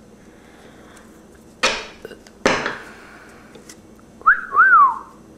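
Two sudden rustling knocks as a thick stack of Pokémon trading cards is handled, then a short whistle near the end, two notes each rising and then falling.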